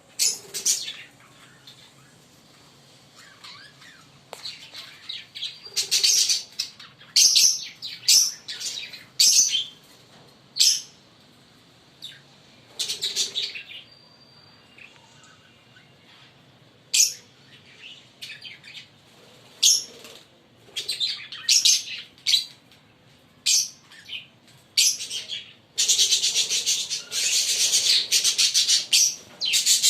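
A pair of Fischer's lovebirds chirping in short, shrill, irregular bursts, breaking into near-continuous chattering for the last few seconds.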